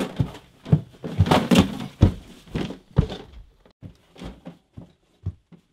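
A rapid series of knocks, thuds and clatter of hard objects, densest in the first three seconds and thinning to a few separate knocks near the end.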